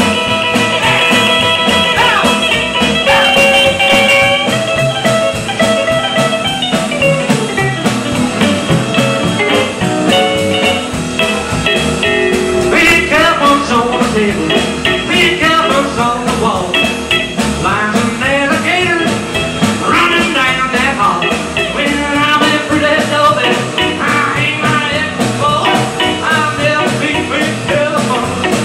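Live band playing a country and rock-and-roll number on upright double bass, acoustic and electric guitars and drums. Held chords in the first few seconds, then quick bending notes through the rest.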